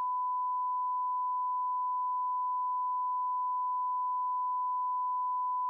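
A single steady electronic beep tone at one pure pitch, unchanging in level, with no other sound under it.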